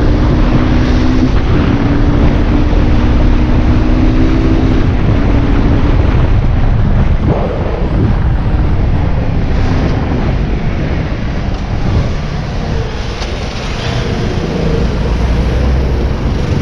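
Aprilia RX motorbike's engine running at a steady cruise under heavy wind noise on the microphone. The steady engine note fades after about five seconds as the bike eases off and slows in traffic.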